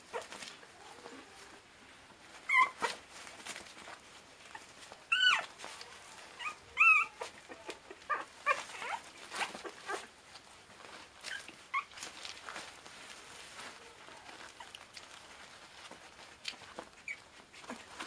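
Border terrier puppies, about 25 days old, giving short high squeals and yelps as they play-wrestle. Three loud squeals stand out in the first seven seconds or so, with quieter squeaks and the scuffling of small paws on the bedding in between.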